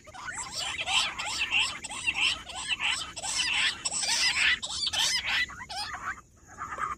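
Rock bush quail calling: a rapid, continuous chattering of short high chirps that overlap one another. The chattering breaks off briefly near the end.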